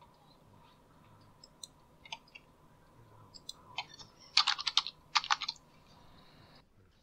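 A few scattered light clicks, then two quick bursts of rapid clicking about four and five seconds in, over a faint steady hum.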